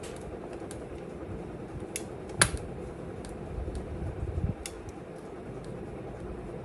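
Scattered clicks and taps on a MacBook Air's keyboard and trackpad, with one sharper click about two and a half seconds in, over a steady low hum.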